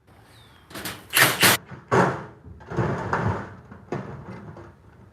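Metal rattling and scraping against a garage door section while a cylinder lock and its backer plate are fitted: a few loud clattering scrapes in the first half, then lighter clicks and ticks.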